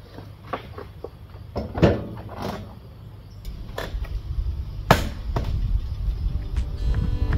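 A series of irregular knocks and clunks, about a dozen spaced unevenly, over a steady low rumble; music begins near the end.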